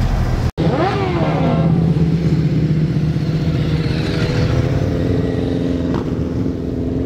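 Sport motorcycles riding past with their engines revving. The pitch falls sharply about a second in, then settles into a steady engine note.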